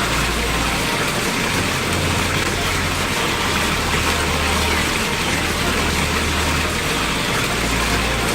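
Water pouring steadily down a fiberglass artificial waterfall and splashing into its basin, a constant rushing hiss with a low rumble underneath that swells and drops.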